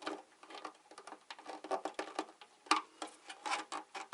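Irregular plastic clicks, taps and short scrapes from handling and prying at the snap-fit parts of a disassembled battery backup unit, with one sharper click just under three seconds in.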